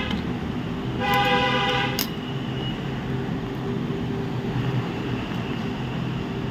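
A vehicle horn honks once for about a second, about a second in, over a steady background hum; a sharp click follows near two seconds.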